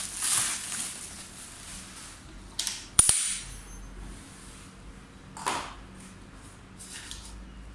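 Plastic packing wrap crinkling as it is pulled off an electric scooter's handlebars, then a single sharp click about three seconds in, the loudest sound, followed by a couple of brief rustles.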